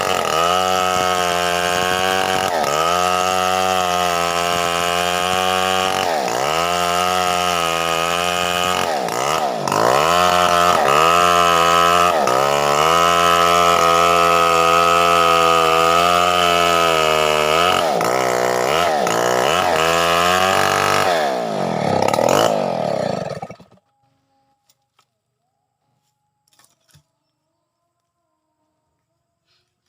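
Stihl 070 two-stroke chainsaw at high revs cutting through a thick jackfruit trunk, its pitch dipping and recovering again and again as the chain bogs under load. The sound stops abruptly about three-quarters of the way through.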